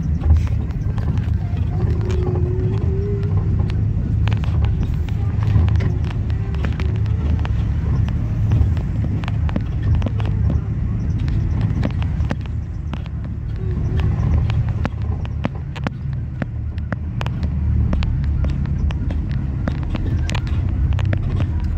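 Steady low rumble of a vehicle moving along a street, its engine and road noise heard from on board, with frequent small rattles and knocks.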